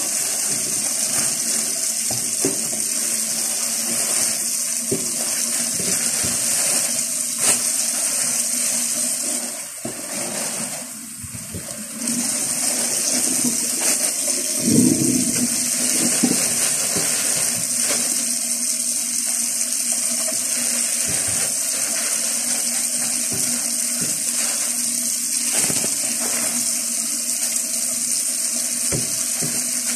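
Kitchen tap running steadily into a sink, a constant rushing hiss that drops off briefly about ten seconds in. Plastic bags crinkle and rustle over it as fish are handled.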